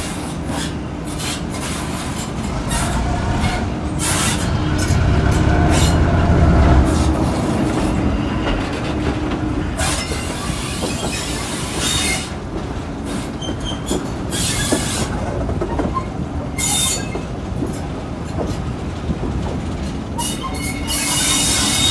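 A Class 08 diesel shunter running with its train, its engine note swelling heaviest about five to seven seconds in. Over it, wheels squeal again and again and click over the rail joints.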